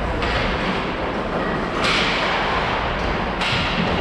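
Ice hockey play echoing in an arena: skates scraping across the ice in repeated rushes of hiss, about three in four seconds, with dull thuds.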